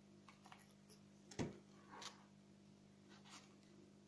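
Near silence with faint handling noises: small rustles and taps as fishing line and a thin plastic tube are worked between the fingers. One louder tap comes about a second and a half in and a smaller one just after, over a low steady hum.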